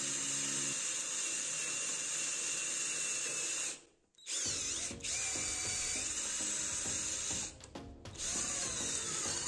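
Wooden dowel being twisted through a steel thread-cutting die clamped in a vise, the die's cutting edges scraping and crunching the wood as it shaves it into a point. The sound cuts out briefly about four seconds in.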